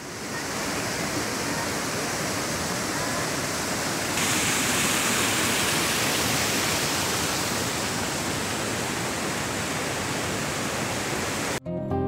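Rushing water of a rocky mountain creek cascading over boulders: a steady hiss of white water that gets a little louder and brighter about four seconds in. Plucked acoustic guitar music takes over near the end.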